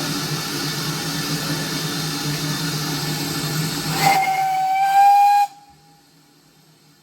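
Steam locomotive hissing steam with a steady low hum, then its steam whistle blown once about four seconds in for about a second and a half, the pitch rising slightly; hiss and whistle cut off together.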